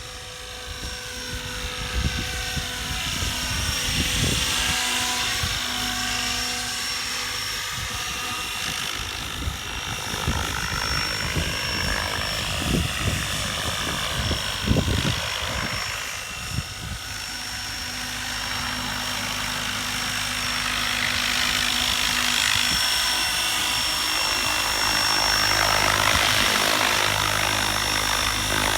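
Mikado Logo 690 electric radio-controlled helicopter in flight: its motor and rotor whine sweeps up and down in pitch several times as it moves about, growing louder toward the end. Wind gusts buffet the microphone through the first half.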